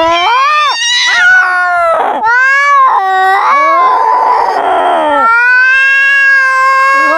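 Tabby cat yowling in a string of long, drawn-out calls that rise and fall in pitch. One call around the middle is rough and raspy, and the last is held steady for about two seconds.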